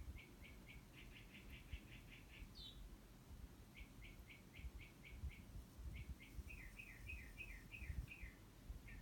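Faint bird song: bursts of short, high chirps repeated about five times a second, broken by brief pauses, then a run of down-slurred notes near the end.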